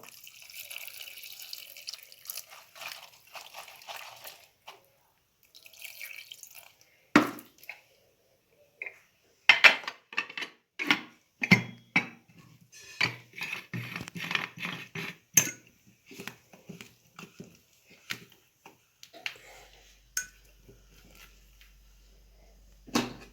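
Kitchen sounds: water runs from a tap for the first few seconds, then pots, lids and utensils knock and clink many times.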